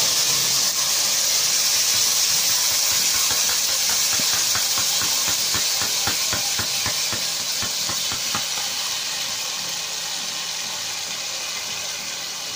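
Blended tomato and guajillo-chile purée poured through a strainer into a hot pot, sizzling and hissing steadily as it hits the heat, the sizzle slowly dying down. Faint rapid ticks come through in the middle.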